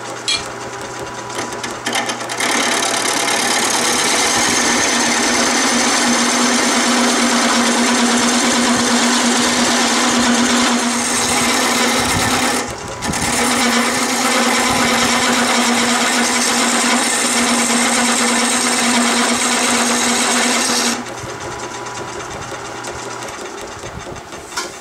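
Wood lathe running with a steady hum while a turning tool cuts into the spinning wooden spindle, a loud, even cutting noise as shavings come off. The cutting breaks off briefly about halfway and stops a few seconds before the end, leaving the lathe motor humming.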